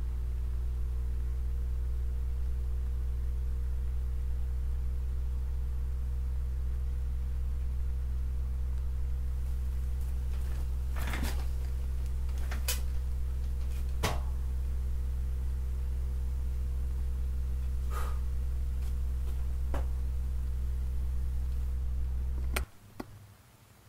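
A steady, low electrical hum with a buzzy overtone, which cuts off suddenly near the end. A few soft clicks and taps sound over its second half.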